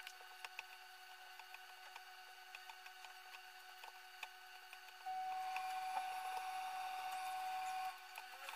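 Bread dough being kneaded by hand on a countertop: faint soft knocks and slaps, over a steady hum that grows louder from about five seconds in until near the end.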